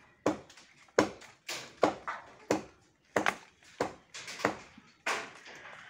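A blade chopping into a thick tree branch in repeated sharp strikes, about nine of them, roughly one every half second or so. The cut through the branch is nearly done.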